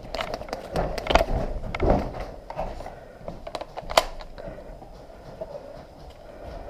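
Scuffing, knocking and rustling of a player moving with gear, with one sharp crack about four seconds in.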